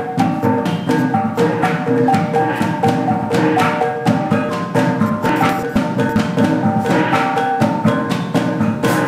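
Percussion-led dance music: a fast, steady beat of drum strokes under repeated short pitched notes.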